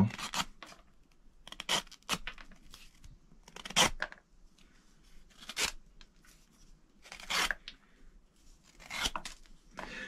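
D2 steel folding knife blade slicing through thick 8–9 ounce leather in several short, separate cutting strokes spaced a second or two apart.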